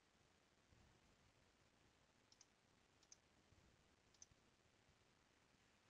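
Near silence, broken by a few faint computer mouse clicks: a pair about two seconds in, one at about three seconds and one just after four seconds.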